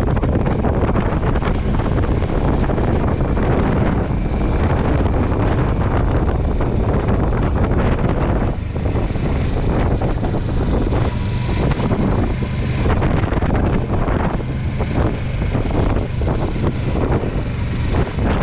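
Strong wind blowing across the microphone, loud and gusting.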